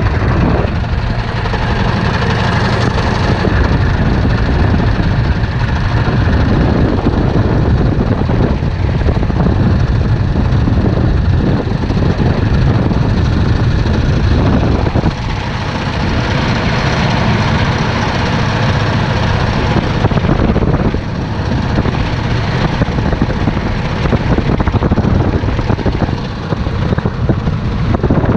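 Yamaha Drag Star 650's air-cooled V-twin engine running steadily and loudly, with brief dips in level about halfway through and again a few seconds later.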